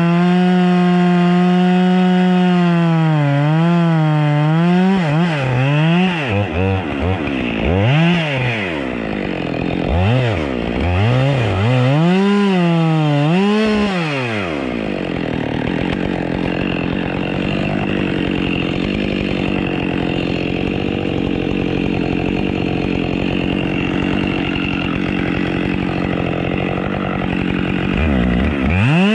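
Two-stroke chainsaw held at high revs, then its throttle dropped and opened again several times, the pitch falling and rising. For about the last half it gives a steady rough noise with its pitch buried, as when the chain is cutting through wood, and it is revved high again near the end.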